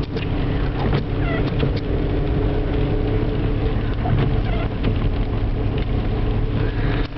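Inside a Toyota Corolla's cabin crawling along a snowy freeway: steady engine and road hum, with scattered light clicks.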